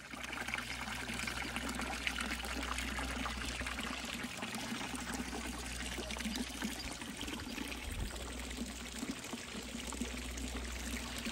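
Water pouring steadily from the metal spouts of a stone village fountain into its stone basin.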